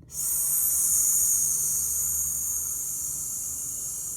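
A woman exhaling one long, steady "sss" hiss as a breathing exercise. It starts sharply and slowly fades.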